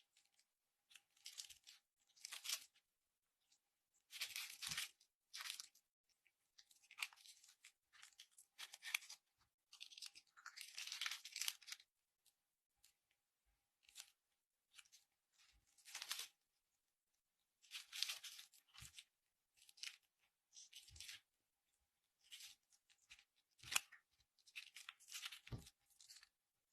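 Slime being handled, giving irregular bursts of crackling noise, each from a fraction of a second to about two seconds long, with short pauses between.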